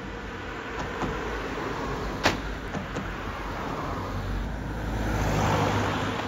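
Road vehicle noise: a vehicle passes close by, its sound swelling and fading near the end, over a steady background of traffic. A single sharp knock about two seconds in.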